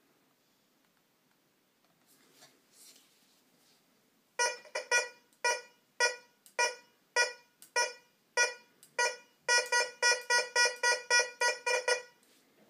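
Tesoro Tejon metal detector beeping as its search coil sweeps over iron nails with a coin beneath, each beep a target signal. The beeps begin about four seconds in at about two a second, then quicken to about four a second before stopping near the end.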